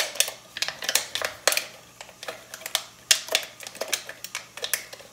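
Cut strips of a thin plastic water bottle being bent back one by one, the plastic crackling and clicking in irregular sharp snaps, several a second.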